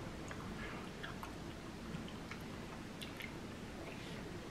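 A person quietly chewing a gummy candy, with a few faint, soft mouth clicks now and then.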